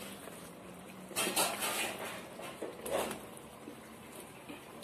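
Sliced carrots tipped into a clay pot of simmering curry, landing with two short splashy rustles, one about a second in and a shorter one around three seconds.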